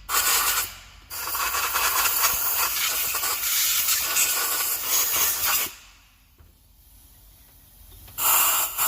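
Compressed-air blow gun hissing in bursts as it blows cleaning dust out of the cylinder head's injector seats: a short blast, then a long one of about four and a half seconds, then a pause and another short blast near the end.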